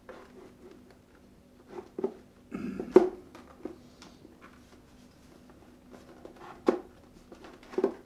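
Replica Cobra Commander helmet with a mirrored visor being handled and worked down onto the head: scattered clicks and knocks of the hard shell, the loudest about three seconds in, with a short rustle just before it.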